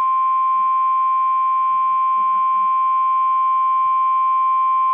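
NOAA Weather Radio receiver sounding its 1050 Hz warning alarm tone: one loud, steady, unbroken high tone that announces an urgent warning message is about to be broadcast.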